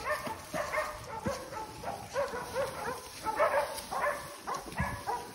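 Dogs barking over and over in quick succession, short sharp barks with no let-up.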